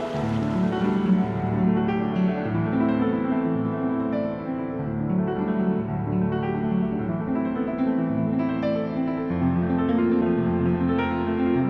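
Instrumental piano music, notes and chords changing every second or so.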